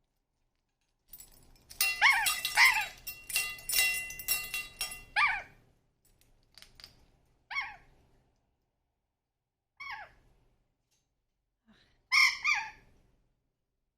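Pet bird calling: a busy run of chirps and squawks lasting about four seconds, then single short calls every couple of seconds and a quick pair near the end.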